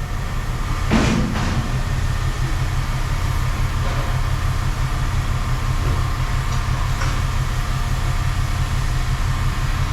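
An engine running steadily at idle, a constant low rumble, with a single sharp knock about a second in.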